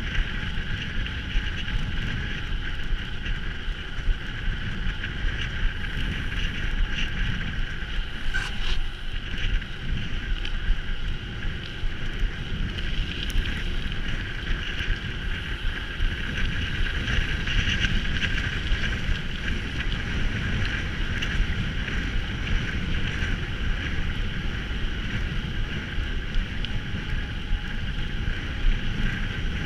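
Mountain bike being ridden, heard from a camera mounted on the rider or bike: steady wind rumble on the microphone with a continual rattle and small knocks from the bike over rough ground, and one sharper knock about eight seconds in.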